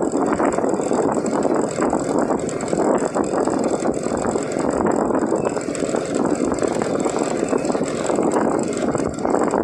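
Small motorbike running while it is ridden at a low, steady speed. The engine and road noise stay at an even level throughout.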